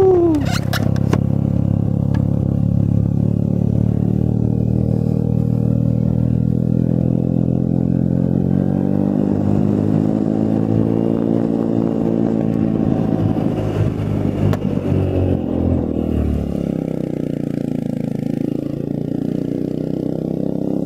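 Motorcycle engine running steadily. About nine seconds in its pitch climbs as it speeds up, then it drops back lower a few seconds later.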